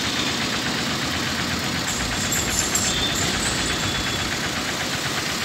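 A vehicle's engine running steadily.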